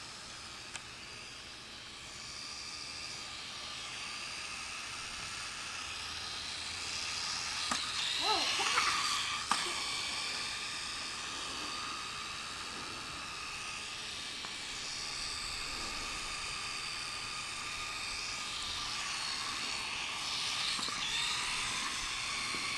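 Small electric motor of a radio-controlled truck whining as it drives, its pitch rising and falling with the throttle. A few sharp knocks come about eight and nine and a half seconds in.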